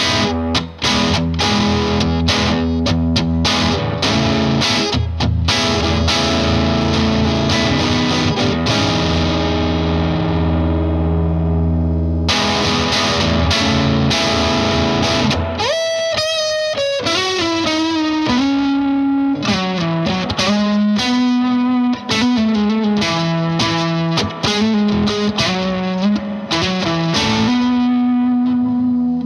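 Electric guitar, a Fender Custom Shop '57 Stratocaster, played through an MXR Duke of Tone overdrive pedal into a Vox AC15 valve amp with a gritty, distorted tone. It strums chords, one of them left ringing for a few seconds about ten seconds in, then changes about halfway to single-note lead lines with held notes.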